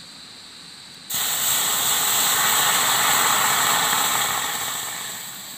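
Liquid poured into a hot wok, hissing and sizzling loudly as it hits the hot metal and flashes to steam. The hiss starts suddenly about a second in and slowly dies down near the end.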